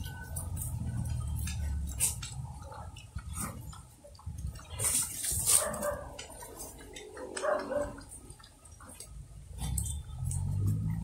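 Native pigs feeding on cut banana and taro leaves: many short crunches and rustles of leaves as they chew, with low grunts near the start and again near the end.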